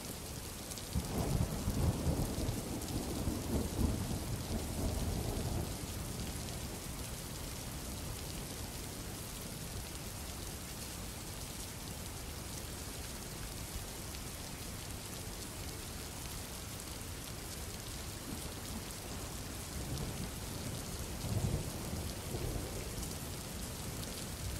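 Steady rain with rolls of thunder, a long rumble starting about a second in and a weaker one near the end, as a recorded effect opening a slowed-down 'screwed' track.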